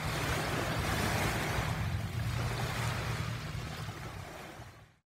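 Sea surf washing in a steady rush that slowly fades away, cutting off just before the end.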